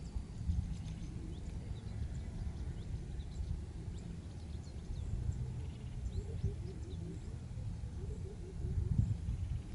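Wind buffeting the microphone as a steady, uneven low rumble, with faint bird chirps in the distance and a short run of repeated low notes a little past the middle.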